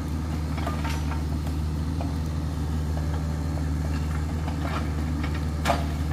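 Mini excavator's diesel engine running steadily as it works in the tree line, with a few sharp knocks, the loudest near the end.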